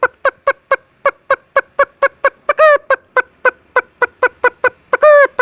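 A man imitating with his voice the alarm cackle of a frightened chicken: rapid short clucks, about four a second, broken twice by a longer drawn-out squawk.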